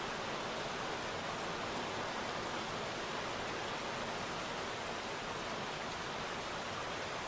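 Steady rain falling onto puddles: an even, unbroken hiss.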